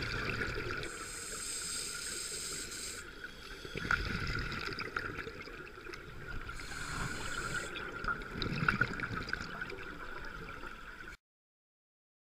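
Scuba diver breathing underwater through a regulator: two long hissing inhalations alternating with gurgling rushes of exhaled bubbles. The sound cuts off suddenly about a second before the end.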